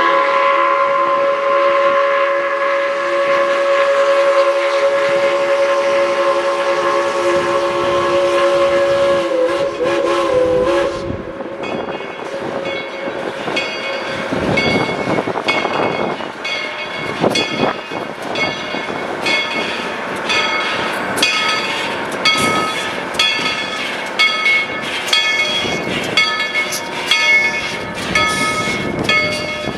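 Steam locomotive whistle blowing one long chord for about eleven seconds, then the train running with a regular beat of ringing strikes, about one a second.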